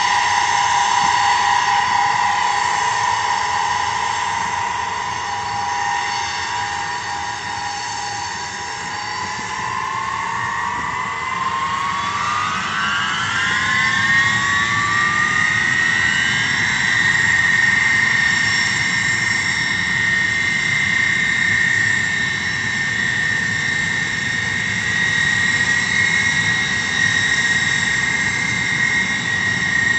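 Four Soloviev D-30KP turbofans of an Ilyushin Il-76MD running loud with a screaming whine. About a third of the way in the whine rises steadily in pitch over several seconds, then holds high and steady: the engines spooling up to take-off power.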